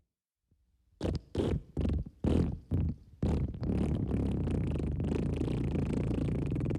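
Wet fart sound: after a moment of silence, about five short sputtering blasts, then one long, steady, low rumbling fart that carries on.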